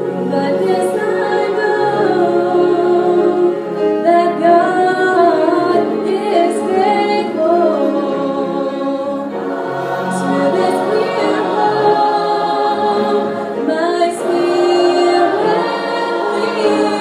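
A mixed church choir of men and women singing in long held notes, with instrumental accompaniment.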